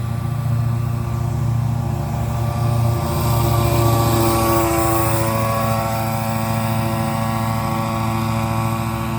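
Mosquito control truck driving past, its machinery making a steady droning hum that swells to its loudest about four seconds in, with a hiss, and drops slightly in pitch as it goes by.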